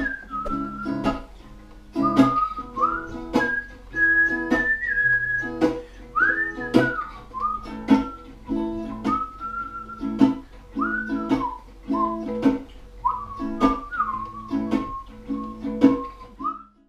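Acoustic guitar strummed in a steady rhythm, with a whistled melody over it that glides up and down between notes. The music stops just before the end.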